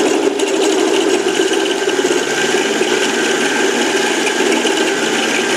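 7x10 mini lathe running while a milling cutter takes a light cut to make a small groove: a steady motor and gear run with a fast, even rattle from the cut.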